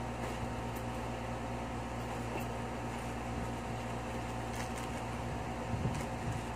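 Steady mechanical hum of a running room appliance such as an electric fan or air conditioner, with a few faint clicks and rustles of small items being handled.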